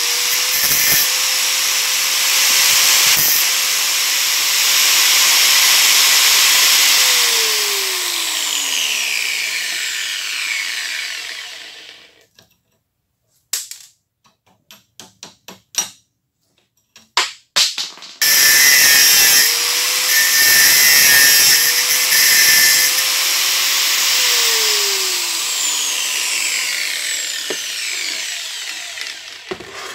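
Angle grinder with a thin cut-off disc cutting through a rusty steel pin, running with a steady whine under the grinding noise. It is switched off and spins down with a falling whine. A few clicks and knocks follow, then it starts again, cuts a second pin, and winds down once more near the end.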